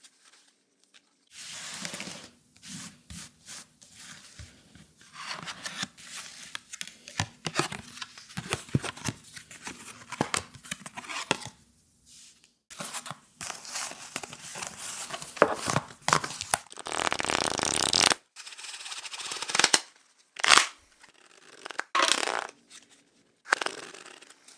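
Playing cards being shuffled and handled in a run of separate short effects, rustling and snapping, with brief silences between them and a longer dense burst about two-thirds of the way through.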